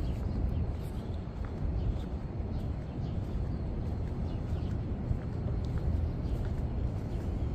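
Outdoor ambience recorded on the move: a steady low rumble with faint, scattered short high chirps.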